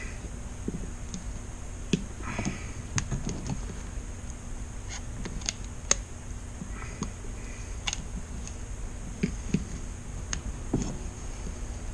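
Electrical tape being pulled tight and wrapped around a swollen LiPo battery clamped in a vise: scattered clicks and handling knocks, with two short rasps of tape peeling off the roll about two and seven seconds in, over a steady faint hum.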